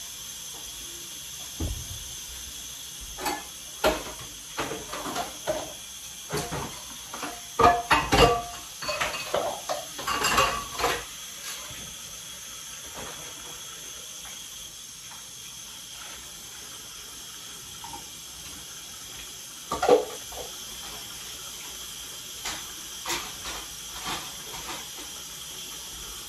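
Kitchen cleaning: irregular clatters, clinks and knocks of things being handled and set down at the counter, busiest in the first half, with one loud knock about twenty seconds in, over a steady hiss.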